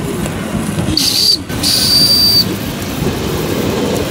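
Small model steam boat whistle giving two high-pitched toots, a short one and then a longer one.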